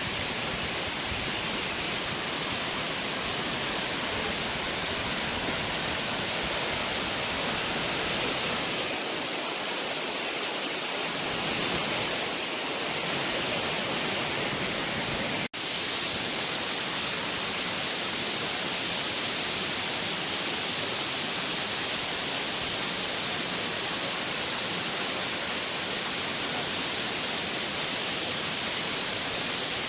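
A steady rushing noise with a constant high hiss, broken by a split-second dropout about halfway through.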